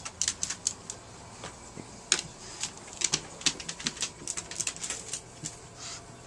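A quick, irregular run of sharp light clicks and taps, several a second, easing off near the end.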